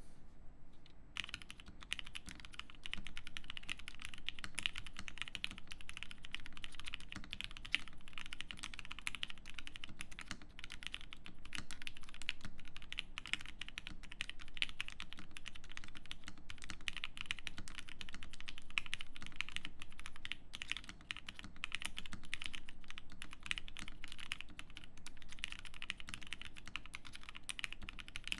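Steady fast typing on a custom mechanical keyboard with lubed Gateron Yellow linear switches, a polycarbonate plate and GMK keycaps: a dense run of keystroke clacks that starts about a second in.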